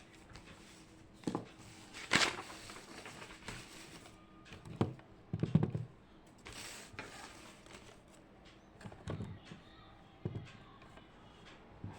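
Scattered soft knocks, taps and thuds of small objects being handled and set down on a desk, with a brief rustle a little past the middle, over a faint steady room hum.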